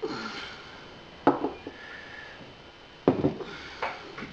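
Glassware set down on a wooden table: two sharp knocks about two seconds apart, with a few lighter taps between them.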